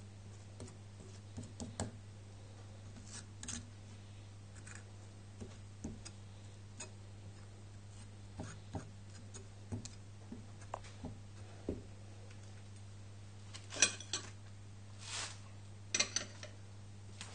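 A knife and a small brush spreading onto a halved butternut squash on a wooden cutting board: scattered light taps, scrapes and rubs, with a few louder clacks near the end, over a steady low hum.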